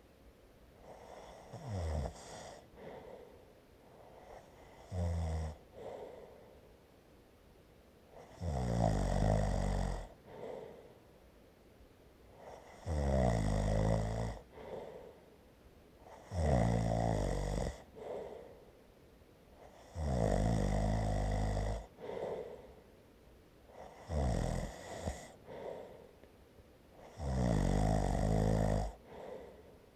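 A person snoring in a steady rhythm, a loud snore about every four seconds, each lasting a second or so, with softer breathing between. The first two snores are shorter and weaker than the rest.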